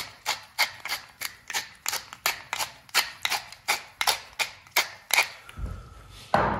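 Hand-twisted pepper mill grinding pepper, a steady run of clicks about three a second that stops about five seconds in, followed by a low thump near the end.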